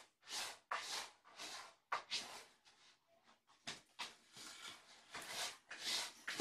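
Rustling and scuffing of a padded fabric cat bed being lifted and handled, in a quick string of short bursts.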